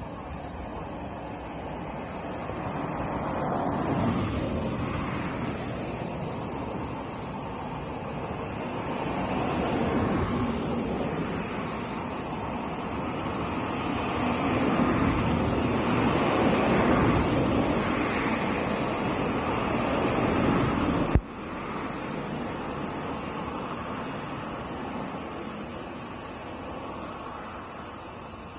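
Cicadas buzzing in a steady, high, unbroken chorus. Passing road traffic swells and fades underneath, and there is a short click about two-thirds of the way through.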